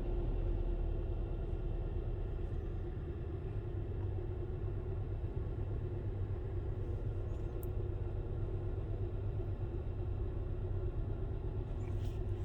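2016 Hyundai Sonata's four-cylinder engine idling steadily with its cylinder 4 injector shut off by a scan-tool actuation test, a low even rumble; the injector is suspected of failing and flooding that cylinder.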